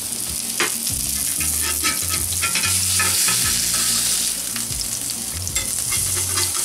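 Tuna steaks sizzling in hot oil in a cast iron ridged grill pan, a steady hiss, with clicks and scrapes of a metal spatula and fork against the pan as the steaks are lifted out.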